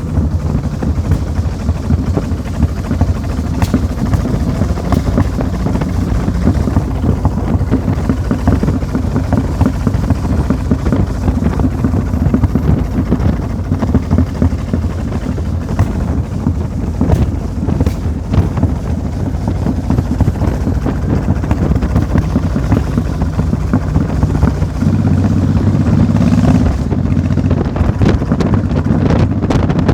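An engine running steadily under rough, gusty noise, with a change in its tone about 25 seconds in.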